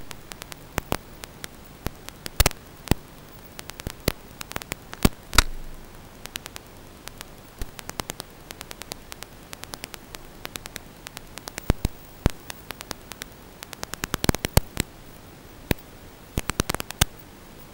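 Radio static from an analog FPV video link: a steady hiss with irregular sharp crackles and pops, some bunched in quick clusters.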